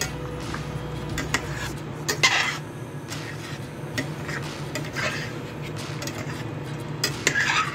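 A metal slotted turner stirring chicken in thick curry sauce in a stainless steel pot, scraping and clinking against the pot, with louder scrapes about two, five and seven seconds in. A steady low hum sits underneath.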